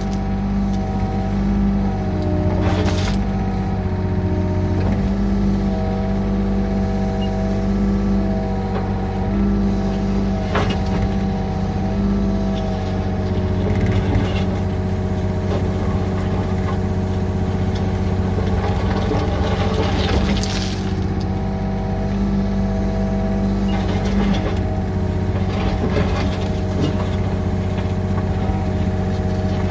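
Yanmar B37 compact excavator's diesel engine running steadily with its hydraulics working, the hum shifting pitch a few times as the boom and bucket move. A few short scrapes and clunks of the bucket working the gravel.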